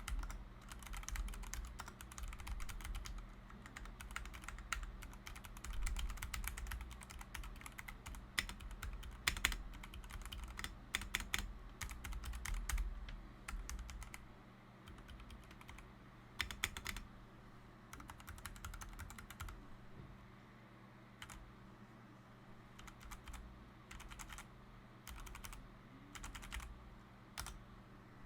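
Typing on a LOGA x Carnival mechanical keyboard with Gateron Brown tactile switches: fast, continuous keystrokes for about the first half, then slower, scattered key presses with a few short flurries.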